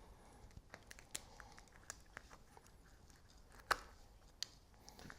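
Old rubber handlebar grip being cut with a razor blade and pulled off the bar: faint tearing and scattered small clicks, the sharpest about three and a half seconds in.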